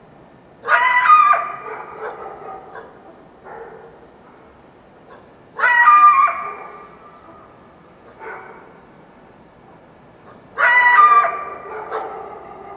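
Wild coyote giving three loud barking yelps about five seconds apart, each tailing off over a second or so.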